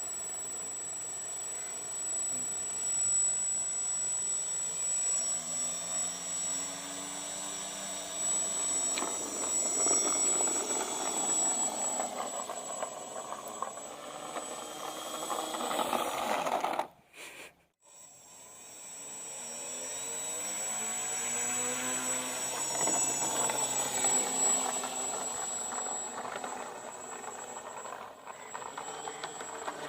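Small electric motor spinning the propeller of a homemade air-powered RC car, a steady high whine whose pitch rises and falls as it runs. The sound cuts out suddenly for about a second two-thirds of the way through, then comes back.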